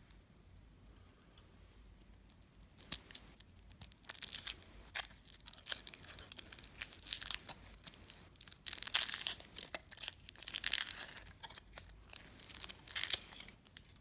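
Kinder Surprise egg's foil wrapper being peeled off by hand, crinkling and tearing in quick, uneven bursts that start about three seconds in.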